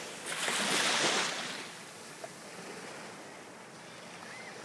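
Calm sea water lapping close by, with a louder rush of noise starting about a quarter of a second in and lasting about a second and a half.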